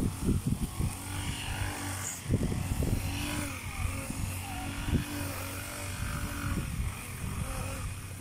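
A motor engine running steadily in the background, a low even hum, with irregular low thumps of wind buffeting the microphone.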